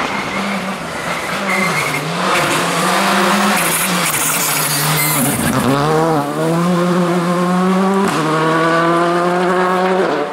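Rally car engine at full throttle on a gravel stage: the revs drop away briefly about halfway through, then climb hard, stepping down at gear changes about two seconds apart near the end.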